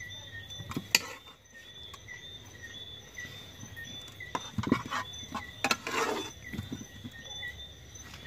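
Night insects chirping in short, evenly repeated calls, with a few sharp clicks and knocks over them.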